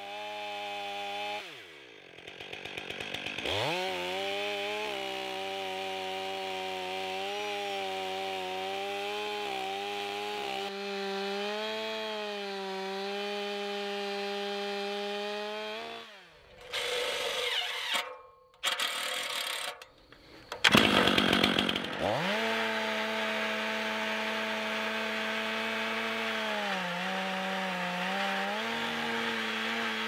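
Stihl MS 500i two-stroke chainsaw running at full throttle under load, cutting very hard hedge (Osage orange) wood, first freehand and then ripping the log lengthwise in an Alaskan chainsaw mill. The engine note holds steady for long stretches, cuts off abruptly a few times around the middle, and sags briefly near the end as the chain bogs in the cut.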